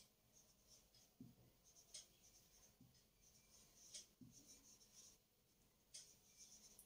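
Faint squeak and scratch of a felt-tip marker writing on a whiteboard in short strokes, with faint sharp clicks about every two seconds.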